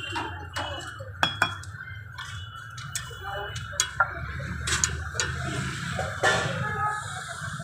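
Metal spoon clinking and scraping against a steel pot and a flat iron griddle while the filling for a frankie roll is scooped and spread: a handful of sharp metal clinks at uneven intervals.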